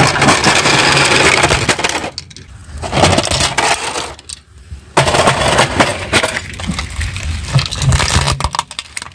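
Car tyre crushing a plastic toy dollhouse and a fashion doll on asphalt: repeated cracking and crunching of plastic in several bursts, with short lulls between them.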